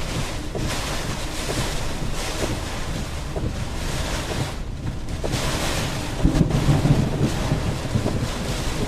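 Strong storm wind buffeting the microphone, a steady rushing noise with heavier gusts about six to seven seconds in.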